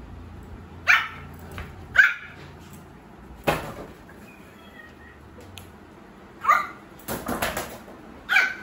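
Pomeranian puppy giving short, high-pitched barks, about five of them at uneven gaps, his first little barks. A quick run of clicks and clatters comes just after seven seconds in.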